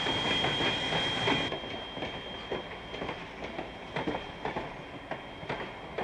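Steam locomotive moving slowly along the track, its wheels clicking irregularly over the rail joints. The level drops slightly about a second and a half in.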